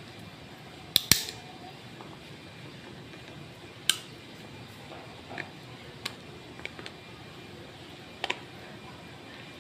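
Sharp metallic clicks from a field-stripped pistol's slide and parts being handled while being oiled: two close together about a second in, then scattered single clicks and a close pair near the end, with fainter ones between.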